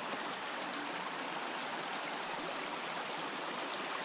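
Small mountain stream flowing steadily, an even rush of running water.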